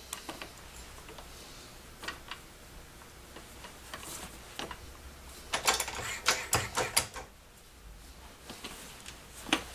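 Scattered metallic clicks and knocks as a chuck's jaws are tightened on a machined aluminum part, with a denser run of sharp clacks around six to seven seconds in. A low steady hum runs underneath.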